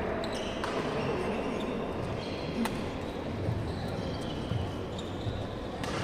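Badminton rally: a few sharp racket strikes on the shuttlecock, spaced irregularly a second or more apart, over a steady background of hall noise.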